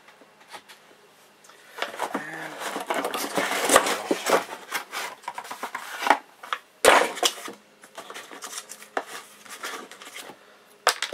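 Cardboard packaging and paper inserts being handled and rustled, with several sharp knocks and clicks as the items are moved about in the box.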